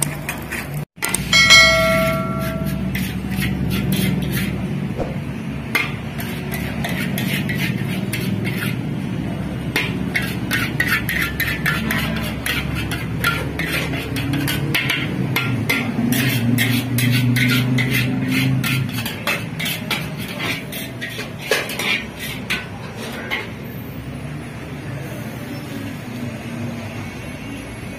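Metal spatula clanking and scraping against a steel wok while stir-frying fried rice, in quick irregular strokes over a steady low rumble. A brief ringing tone sounds about a second and a half in.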